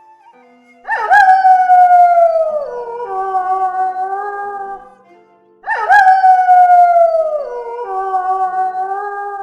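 Wolf howling twice, each howl about four seconds long: a sharp rise to a high note that slides slowly down and settles on a lower held note. Soft flute music plays faintly underneath.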